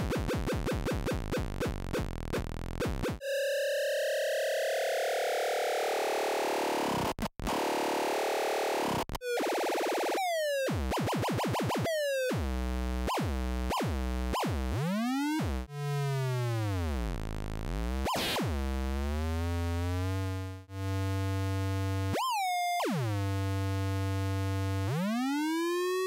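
Square-wave tones from a 555 oscillator clocking a 4040 binary counter, played through a small Orange amplifier. The tone is buzzy and keeps sliding and stepping in pitch, swooping down and back up as a counter output charges and discharges the capacitor on the 555's control-voltage pin. It cuts out briefly a few times.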